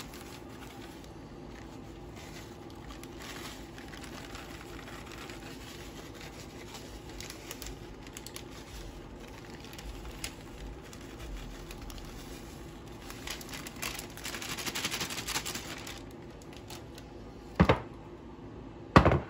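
Plastic bag of dry cake mix crinkling and rustling as the powder is shaken out over a glass baking dish, busiest about two-thirds of the way through, over a faint steady hum. Near the end come two sharp knocks as the glass dish is handled on the tile counter.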